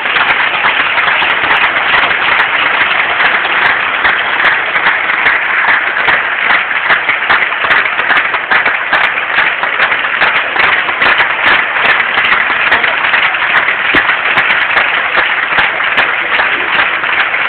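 Large audience applauding: dense, steady clapping of many hands.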